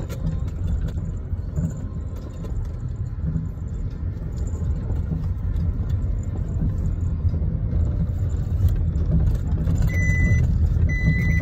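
Car cabin noise while driving slowly: a steady low rumble of engine and tyres that grows somewhat louder towards the end. Near the end a high electronic warning beep starts, repeating about once a second.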